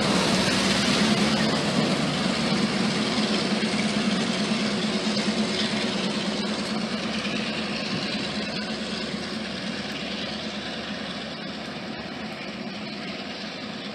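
EMD GP38-2 diesel-electric locomotive's engine running with a steady low hum, fading away as the freight train pulls off down the track.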